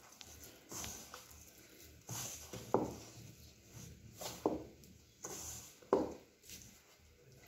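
Hand mixing and kneading moist flour into a shaggy dough in a stainless steel bowl: soft rustling, squishing strokes roughly once a second, a few of them sharper.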